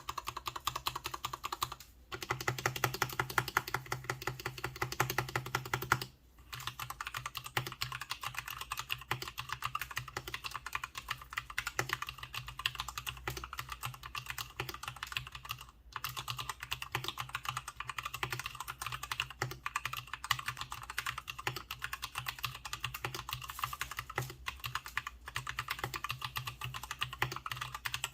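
Fast, continuous typing on an M-Stone Rookie 68BT mechanical keyboard, the keystrokes clicking in a dense stream. It breaks off briefly about two, six and sixteen seconds in.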